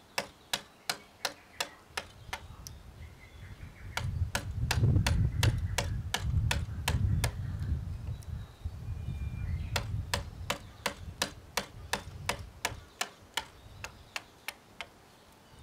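Hammer tapping a chisel into a chestnut beam's joint: light, sharp, even strikes about three a second, with a few short pauses. A low rumble comes up under the taps for several seconds in the middle.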